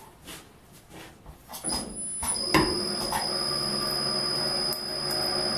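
Benchtop Uzor-N1 cold-forging machine starting up about a second and a half in and running steadily with a high-pitched whine from its motor drive, turning the scroll die to wind a clamped steel bar into a scroll. A sharp click comes shortly after it starts.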